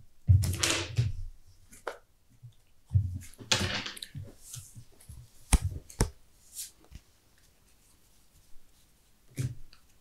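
Sleeved trading cards handled on a playmat: short rustling slides near the start and again a few seconds in, then two sharp taps of cards set down about halfway through.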